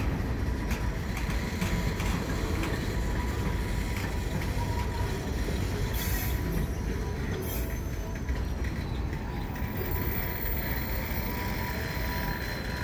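Freight cars rolling slowly past on yard track: a steady rumble of wheels on rail with a faint steady whine. Two brief high-pitched noises come about six and seven and a half seconds in.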